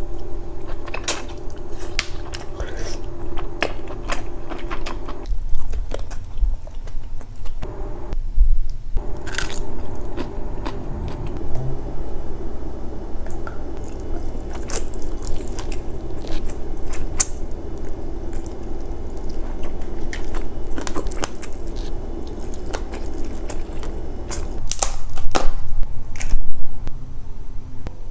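Close-miked mukbang eating of seafood boil: wet chewing and biting with sharp crunches and clicks, over a steady low hum that drops out briefly twice.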